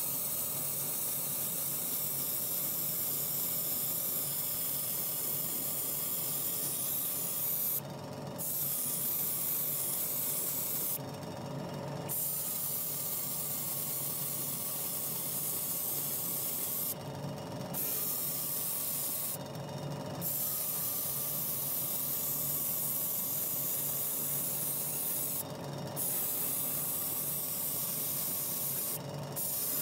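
Paint spray gun hissing as it sprays a diecast model plane, in runs of a few seconds with the trigger let off briefly about six times. A steady low hum runs underneath.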